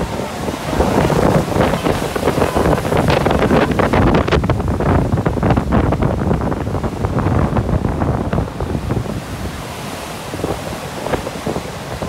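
Large wind-driven storm waves of Lake Superior crashing and surging up a sand beach, with strong gusts buffeting the microphone. The wind noise eases over the last few seconds.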